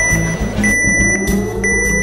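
Film score with a slowly rising tone under low sustained notes, and a high electronic beep repeating about once a second, three beeps in all, like a countdown.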